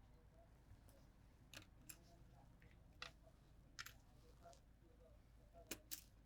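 Faint, scattered small clicks, about six in all, of a Torx screwdriver working the tiny screws out of a smartphone's inner frame.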